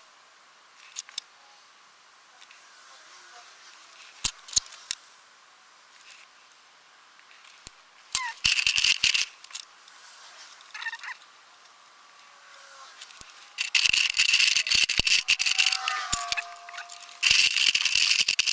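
Copic alcohol-marker nibs scratching and rubbing on bristol board in coloring strokes, with scattered sharp clicks of markers being handled. The strokes are faint at first, with a scratchier stretch a little before halfway, and become loud and dense in the last third.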